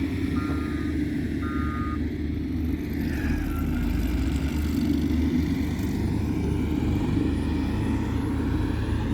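Heavy construction vehicle's engine running steadily, with its reversing alarm beeping twice in the first two seconds before it stops.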